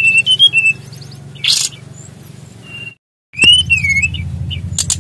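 SRDC (sikatan rimba dada coklat), a small songbird, singing: clear whistled notes near the start, a short harsh note about a second and a half in, then after a brief dropout a whistle that dips and rises, followed by quick chips. A steady low hum runs underneath.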